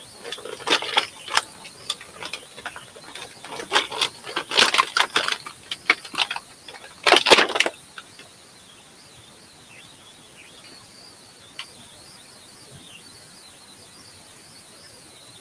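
Plastic crinkling and clicking as a plastic action figure and its packaging are handled, in a busy run of sharp clicks and rustles for about eight seconds that then stops.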